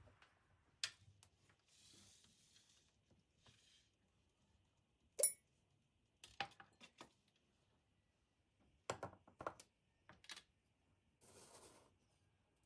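Light handling sounds of household objects: scattered clicks and knocks, a sharp ringing clink about five seconds in, a quick run of knocks around nine to ten seconds, and two short rustles.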